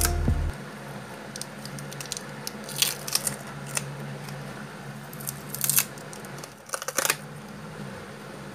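Paper photo prints being peeled off a wall, the tape tearing away in short crunchy crackles, several times over.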